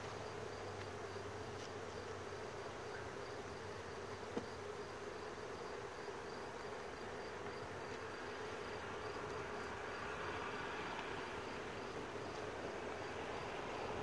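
Honeybees humming steadily around an open hive, with one sharp click a little over four seconds in.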